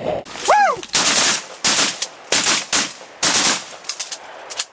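A volley of shotgun fire from several hunters shooting at once: about nine loud bangs in quick, uneven succession, each with a short echo. A short rising-and-falling call sounds about half a second in.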